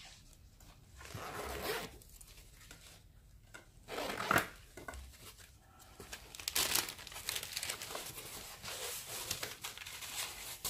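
Clear plastic packaging crinkling and rustling as it is handled, in several bouts, loudest about four seconds in.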